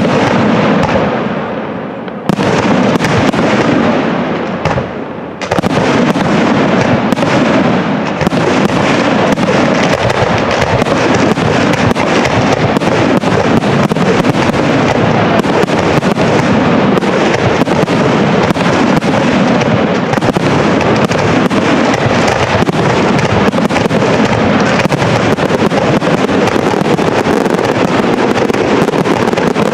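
Aerial firework shells bursting: a few separate bangs in the first seconds, then an unbroken rapid barrage of reports from about five seconds in. It is the closing barrage of the display.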